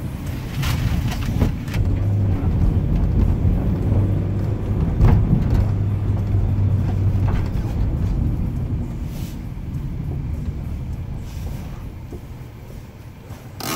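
Car engine and tyre noise heard inside the cabin of an Opel Corsa while driving, a steady low hum that fades over the last few seconds as the car slows down.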